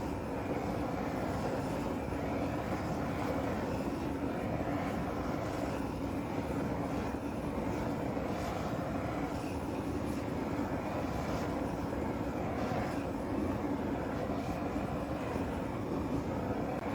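Wood lathe running steadily: a constant hum over an even rushing noise.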